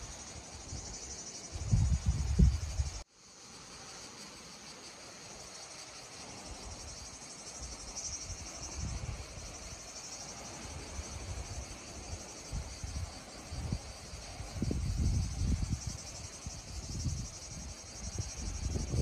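Insects chirring steadily in a continuous high buzz, with gusts of wind rumbling on the microphone. The sound drops out for a moment about three seconds in, then resumes.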